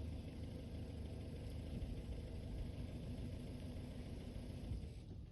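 Toyota Tacoma pickup running, a steady low engine and road rumble with no change in pitch.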